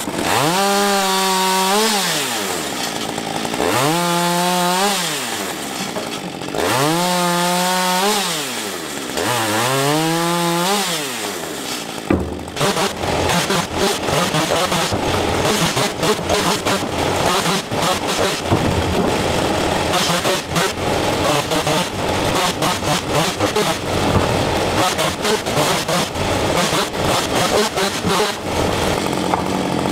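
Two-stroke chainsaw revving up and dropping back four times, each rise and fall a cut through a branch held in a cutting jig. About twelve seconds in it gives way to a dense, choppy run of sawing with many short knocks.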